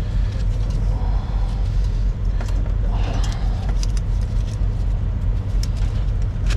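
Steady low rumble of an idling diesel engine, with scattered light metallic clicks and clinks from hand tools at work on truck battery connections.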